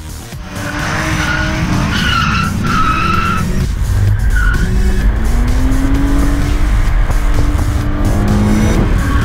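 BMW E36 being driven hard on a track: tyres squealing in several short bursts in the first few seconds, then the engine revs rising and holding high. Music plays underneath.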